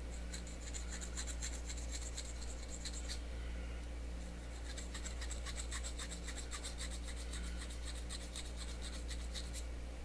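Needle file scraping in quick, short strokes along the glued centre seam of a wheel made from two metal can halves, smoothing the seam down. Two runs of strokes, with a pause of about a second some three seconds in.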